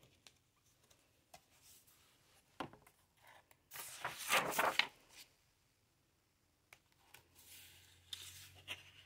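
Hardcover picture book being opened and its pages turned by hand: a soft tap, then a paper swish about four seconds in, and another softer page rustle near the end.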